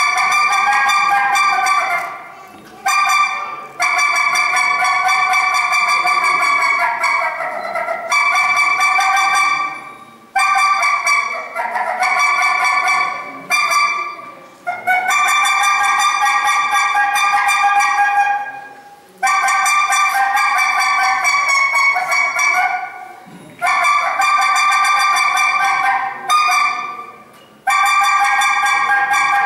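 A blown wind instrument playing a high melody of long held notes, a few seconds each, with short breaks between phrases.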